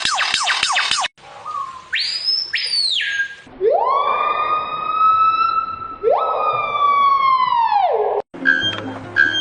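Siren-like wailing. A quick run of falling sweeps and a high rising whistle lead into two long wails. Each wail jumps sharply up to a held tone with overtones and drops away at the end. Near the end it cuts into rhythmic music.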